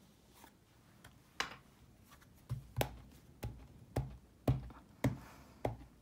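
A plastic-cased ink pad being patted repeatedly onto a rubber stamp mounted on a clear acrylic block to ink it. It starts with a single light tap, then from about halfway in a steady run of soft taps, about two a second.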